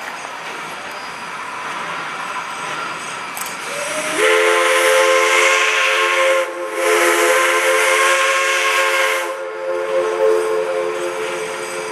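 Steam whistle of a Climax geared logging locomotive sounding two long blasts, a chord of several tones with a breathy hiss, split by a short break, over the low running noise of the approaching train.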